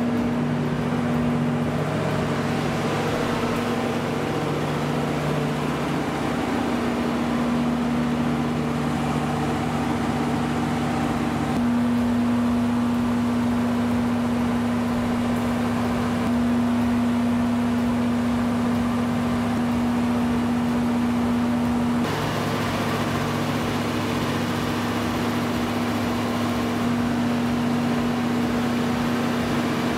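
Cummins VTA-1710 V12 diesel engine of a 500 kW generator set running at a steady speed: a constant drone with a steady hum in it. The sound shifts abruptly twice, about a third and two-thirds of the way through.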